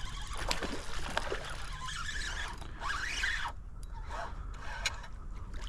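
Light water splashing and dribbling from a hooked speckled trout being fought at the surface, with scattered small clicks.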